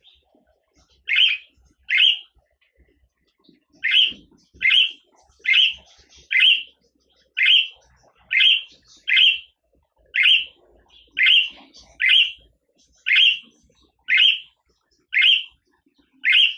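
Budgerigar chirping: short, sharp calls, two near the start and then, after a brief pause, a steady run of about one call a second.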